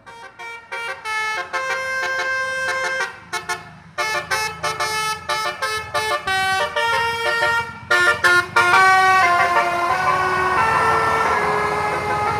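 Basuri musical bus horn (telolet) playing a tune: two quick runs of short stepped notes with a short break between them, then longer held notes from about nine seconds in. Under the last notes a bus engine and tyre noise grow louder as the bus comes through the bend.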